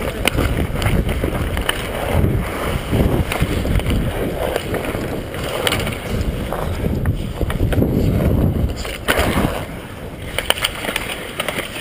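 Ice skate blades carving and scraping on rink ice, with wind rushing over the helmet-mounted camera's microphone as the wearer skates. Several sharp clacks cut through the rush.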